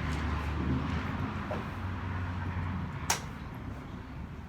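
A single sharp click about three seconds in from the cargo trailer's side-door latch being worked, over a low steady rumble.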